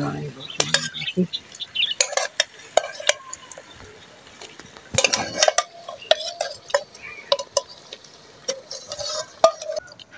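Metal ladle clinking and scraping against an aluminium pot as chicken pieces are spooned into a clay kadhai, with the meat sizzling as it lands in the hot oil and onions. A run of short sharp clinks, with a louder sizzling splash about five seconds in.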